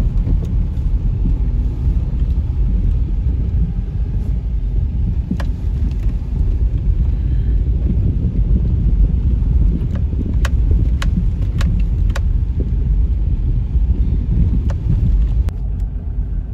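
A car driving slowly over a cracked, broken road, heard from inside the cabin: a steady low rumble of tyres and suspension, with a few sharp knocks and rattles in the middle as it goes over the bumps.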